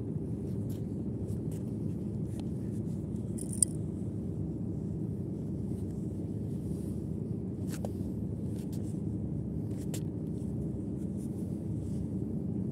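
Steady low rumble of wind and sea, with scattered light clicks and scrapes as a multi-hook fishing line is handled; one sharper click about three and a half seconds in.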